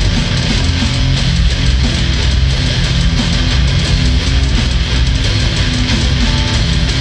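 Loud instrumental heavy metal jam: distorted electric guitar and electric bass playing over a drum kit, dense and steady throughout.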